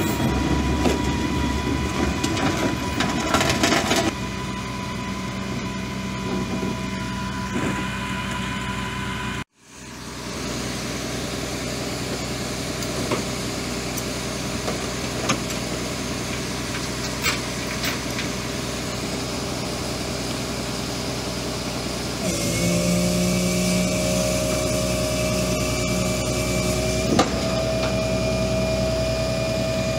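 Flatbed tow truck's engine running steadily while its hydraulic bed and winch load the wrecked car; about two-thirds of the way through the engine note steps up in pitch and gets louder, then holds at the higher speed. The sound briefly cuts out about a third of the way in.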